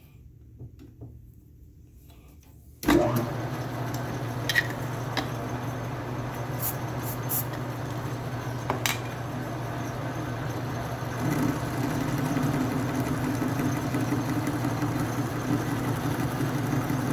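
A metal lathe switches on after about three quiet seconds and then runs steadily with a low hum, broken by a few sharp ticks. The hum grows louder a little past halfway through.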